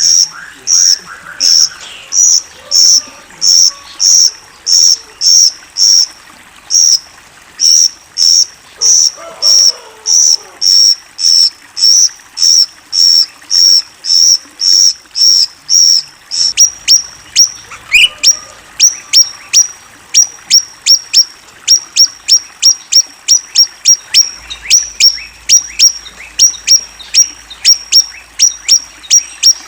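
Recorded small songbird calls: a high, clear note repeated evenly about twice a second. About halfway through it gives way to a sharper, quicker chip repeated about three times a second.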